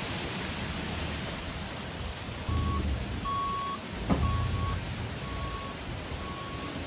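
Vehicle backup alarm beeping, a single high tone repeating about once a second, starting about a third of the way in, over a steady rush of wind noise with low rumbles.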